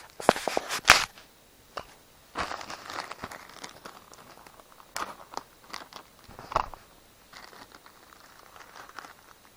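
Small plastic bag of airsoft BBs crinkling and rustling as it is handled, with scattered sharp clicks.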